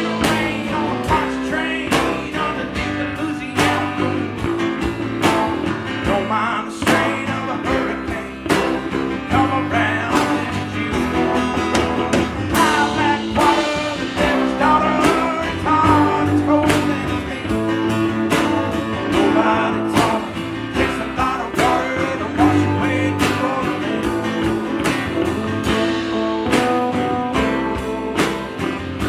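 A band playing a song with guitars and a steady beat, with singing at times.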